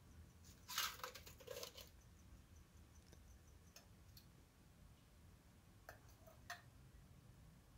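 Near silence broken by a brief rustling clatter about a second in and a few faint clicks later on: the small handling sounds of someone moving with a jar and gear.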